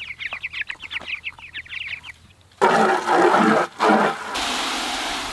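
Three-week-old meat chickens peeping rapidly for about two seconds. After a short pause, water from a garden-hose spray wand rushes into an empty plastic five-gallon bucket, settling into a steady hiss about four seconds in.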